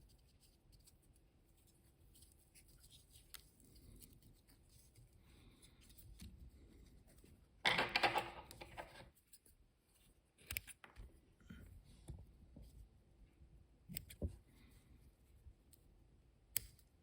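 Faint fly-tying handling noises with scissors: a louder rasp about a second long near the middle, then a few short sharp clicks.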